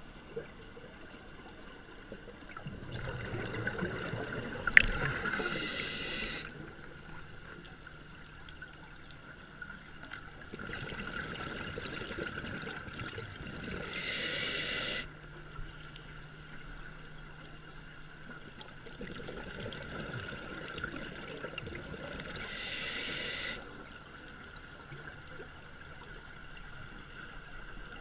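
Scuba diver breathing through a regulator underwater: three slow breaths about eight seconds apart, each a stretch of bubbling that ends in a short bright hiss. A sharp click sounds during the first breath.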